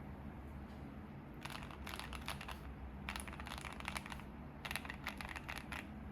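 Keychron Q1 mechanical keyboard with lubed and filmed Tangerine V2 linear switches on an FR4 plate, foam-dampened, being typed on. The keystrokes come in three short bursts of rapid clicks, the first about a second and a half in.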